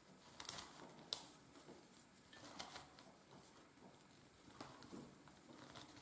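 Faint plastic clicks and soft rustling of a Kilominx, a twelve-sided twisty puzzle, as its layers are turned by hand. It turns smoothly and very quietly, with a sharper click about a second in.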